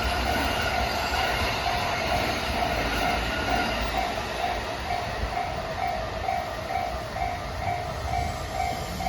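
A freight train of container wagons rolls past, with a steady rumble of wheels on rail. Over it a level-crossing alarm rings steadily at about two strokes a second, and stands out more clearly from about halfway through.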